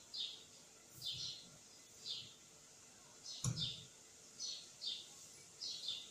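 A small bird chirping: short, high, downward-sliding chirps, mostly in pairs, repeated about every second. A single dull knock sounds about three and a half seconds in.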